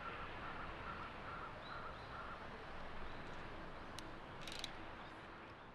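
Faint, steady roar of distant jet aircraft at the airport, with a bird calling a quick run of short notes in the first couple of seconds.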